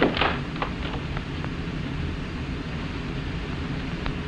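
Steady hiss and low rumble of an old 1953 film soundtrack between lines of dialogue. A brief noisy thump comes right at the start, a few faint clicks follow over the next second and a half, and one more click comes near the end.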